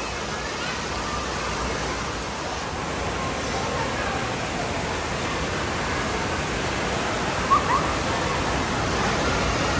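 Steady rush of running water from water-park slides and water features, with faint voices in the background and a brief distant shout about seven and a half seconds in.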